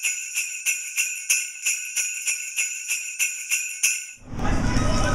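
Jingle bells shaken in a steady rhythm, about three shakes a second, cutting off abruptly about four seconds in. A loud, steady rumbling noise takes over after that.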